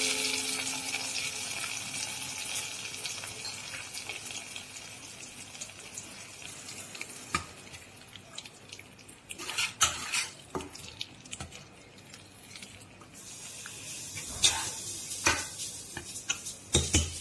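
Hot oil tempering sizzling as it hits the cooked palak dal, the hiss fading over the first few seconds. Then a metal spoon stirs the dal, clinking and scraping against the pressure cooker pot in scattered clicks.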